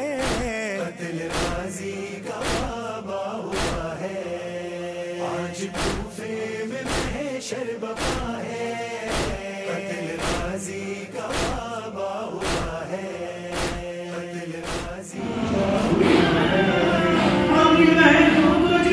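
A noha, a Shia lament, recited by a male voice over a steady beat about twice a second. About 15 seconds in, the beat stops and a louder chorus of men's voices takes over.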